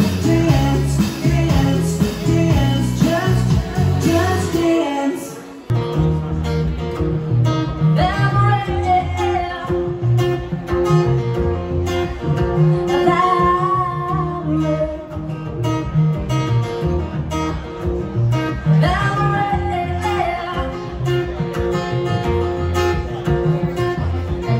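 Live band music: a woman singing over bass guitar, drums and keyboard. About five and a half seconds in it cuts to a woman singing with guitar and upright double bass.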